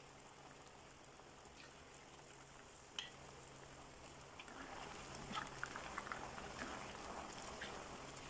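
Cornstarch-coated tofu pieces deep-frying in hot vegetable oil: a faint sizzle and bubbling. There is a single click about three seconds in, and from about four and a half seconds, as more pieces go into the oil, the sizzling grows louder with scattered crackles.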